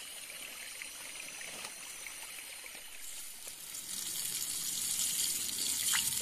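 Running water of a riverside stream, a steady rushing hiss that grows louder about four seconds in.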